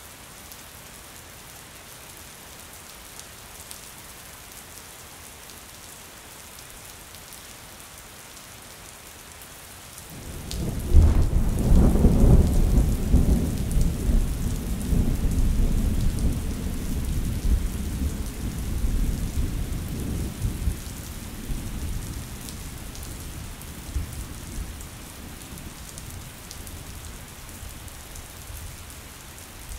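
Steady rain pattering on a window, with a clap of thunder that breaks about ten seconds in, peaks quickly and then rolls away slowly over the next ten seconds or so.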